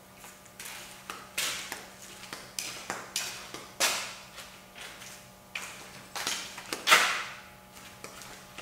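A series of irregular sharp knocks and clatters, each ringing on briefly, the loudest about seven seconds in.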